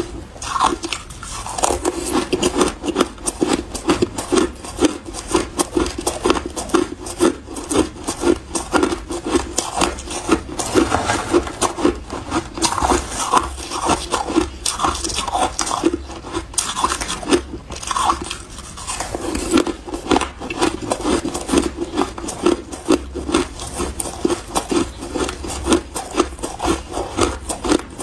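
Shaved and crushed ice being chewed in the mouth: a rapid, continuous crunching.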